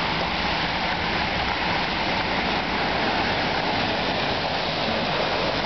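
Steady rushing hiss of water: car tyres swishing through a flooded street in storm rain.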